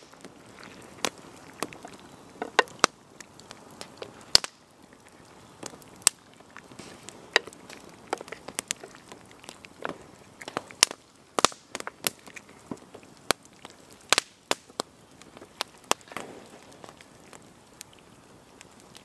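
Wood campfire crackling, with many irregular sharp pops and snaps over a faint steady hiss.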